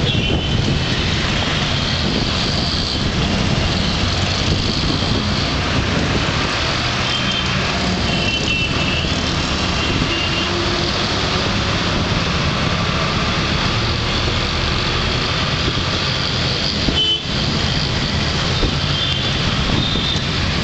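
Riding in an auto-rickshaw through city traffic: the rickshaw's engine runs steadily under a constant din of traffic, while vehicle horns beep now and then, high and short, several times.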